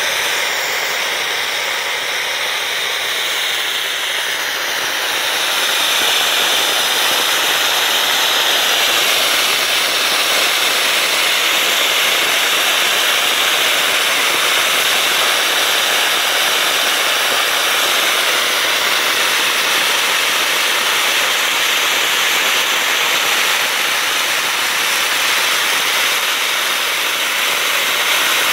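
Homemade rocket motor burning its fuel: a loud, steady hiss of exhaust that grows louder about five seconds in and then holds.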